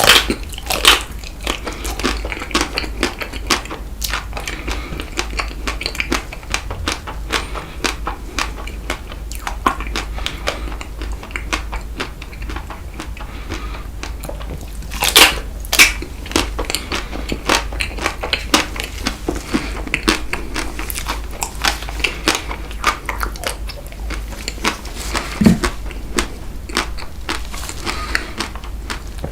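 Close-miked eating of Tico chocolate ice cream with Nutella: a steady run of small crisp crunches and wet chewing, with a few louder bites about fifteen seconds in and again near the end.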